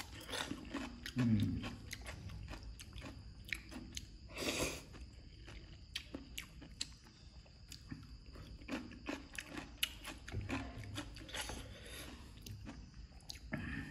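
A person eating papaya salad close to the microphone: chewing and crunching raw vegetables with many sharp mouth smacks, and a longer slurp about four and a half seconds in.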